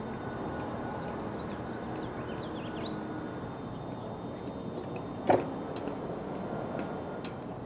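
Steady outdoor background noise with a single sharp knock about five seconds in and a smaller tick near the end.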